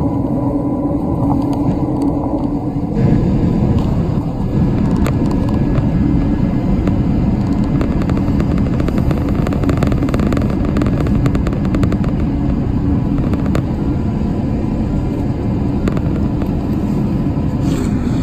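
Turboprop engine noise inside the cabin of a small commuter plane taxiing after landing: a loud, steady drone and rumble whose tone changes about three seconds in.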